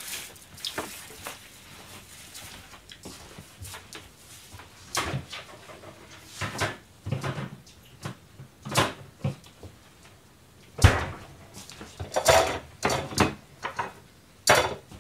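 Scattered light knocks and clatters of dishes and chopsticks on a stainless-steel kitchen counter, with a heavier thump about eleven seconds in and a short run of clatters just after.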